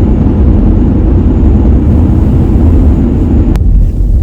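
Steady low rumble of road and tyre noise inside a moving car's cabin. A sharp click comes about three and a half seconds in, after which the higher hiss drops away.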